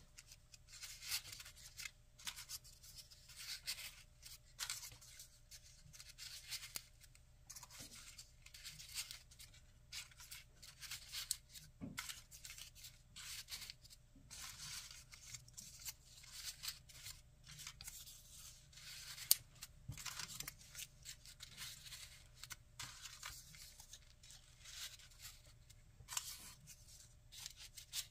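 Folded paper origami units rustling and scraping against one another as they are handled and slotted into a 3D origami swan body, in short, irregular, crisp rasps. A single sharp click about two-thirds of the way through is the loudest sound.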